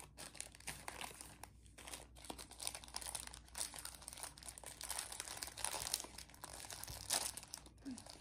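Crinkly plastic wrapper of a pack of Lemona vitamin powder sticks being handled and torn open by hand: an irregular run of crackling, with one louder crackle about seven seconds in.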